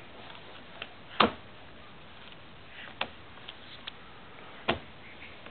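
A baby's hand slapping and pressing the keys of a laptop keyboard: a few separate knocks and key clicks, the loudest about a second in, with others near three seconds and just before five.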